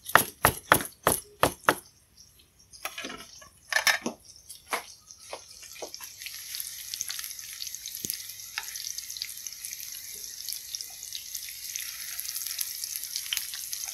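A knife chopping green onions on a wooden cutting board, quick even chops about four a second, stopping about two seconds in. A few knocks follow, then oil sizzles steadily with small crackles as vegetarian mock fish, ginger and scallion stems fry in a pan of hot oil.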